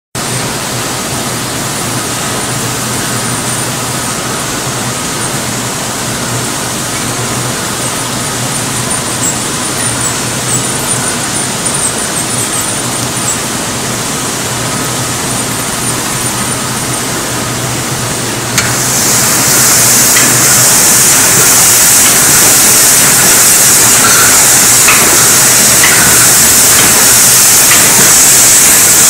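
Automatic bottling line for plastic water bottles running: steady machine noise with a low hum. About two-thirds of the way through it turns louder and hissier, with a few faint clicks.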